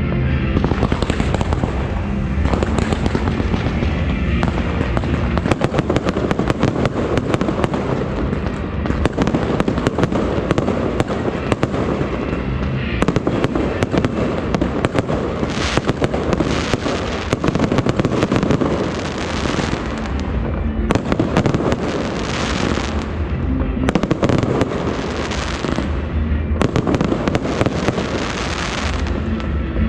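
Fireworks and strings of firecrackers going off, a dense, continuous crackle of rapid bangs.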